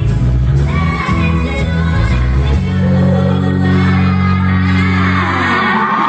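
Female pop vocal group singing live in harmony over musical accompaniment. About two and a half seconds in it settles into one long held final chord of the song, which stops near the end.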